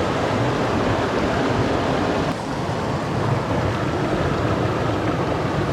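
Mountain stream rushing, a steady wash of water.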